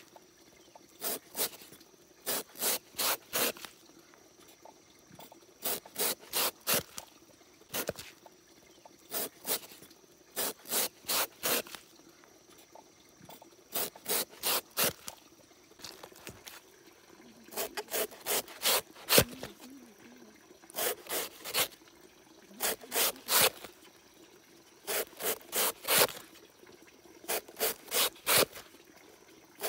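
Repeated scraping strokes, as of something rubbed or sawn back and forth against a hard surface, coming in short runs of three to five quick strokes with brief pauses between.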